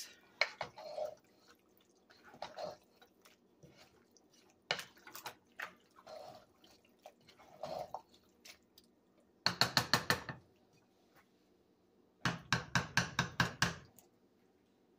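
A spoon stirring thick, creamy pasta shells and vegetables in a saucepan: scattered wet, squelching stirs, then two runs of quick spoon strokes against the pot, each lasting about a second, around the middle and again near the end. These runs are the loudest sounds.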